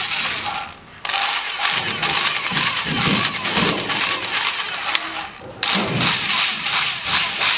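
Corded electric drill spinning a burnt exhaust valve against its seat with lapping paste in a Toyota 3S-FE cylinder head, its speed rising and falling. The drill stops briefly about a second in and again about five seconds in, then starts up again.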